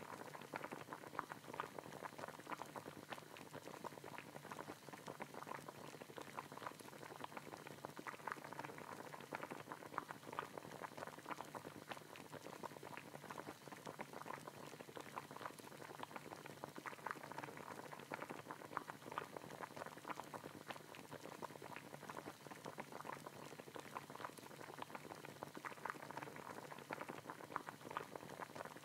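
Cubed pork sizzling in a frying pan, its juices bubbling with a steady fine crackle.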